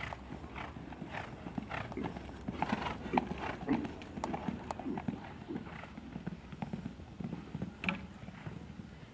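Horse cantering on a sand arena: its hoofbeats on the sand repeat at about two strides a second.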